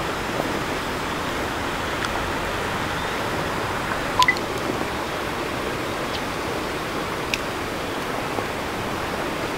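Steady rushing outdoor background noise with no speech. About four seconds in there is a short double blip of tones with a few sharp clicks, and a few more faint clicks come later.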